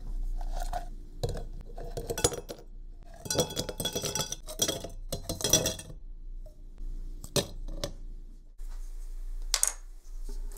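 Frozen coffee ice cubes tumbling out of a stainless steel cup into a tall drinking glass, clinking and clattering against the glass in several rattling bursts over the first six seconds. Two single sharp knocks follow later.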